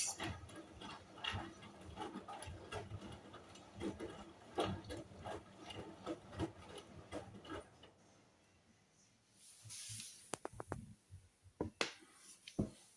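Hoover washing machine at the end of a rinse: the drum turns with irregular clattering and knocks for the first several seconds, then goes quieter, followed by a brief hiss, a few quick clicks and two heavier knocks near the end as the machine moves toward its spin.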